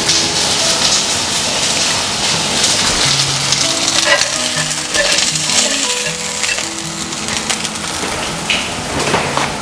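Marinated chicken sizzling as it shallow-fries in a pan, a steady crackling hiss, with background music of short sustained notes playing underneath.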